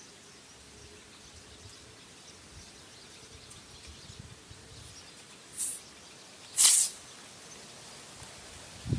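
Compressed air rushing out of an air-only plastic bottle rocket as it launches: one brief, loud hiss about two-thirds of the way in, after a shorter, fainter hiss about a second earlier. Otherwise faint outdoor background.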